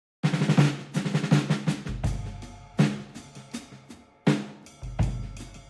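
Background music: a drum-kit beat with snare hits and a deep, sustained bass, starting abruptly after silence about a quarter second in.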